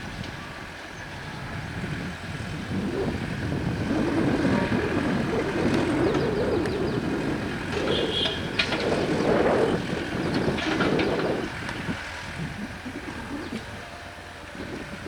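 Caterpillar 320D hydraulic excavator's diesel engine running, growing louder through the middle as it works under load and then easing off, with a few sharp knocks in the middle.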